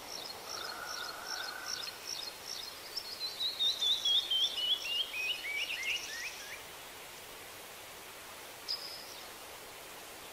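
A bird singing over a steady hiss: a run of quick chirps stepping down in pitch from about three to six and a half seconds in, then one short chirp near nine seconds.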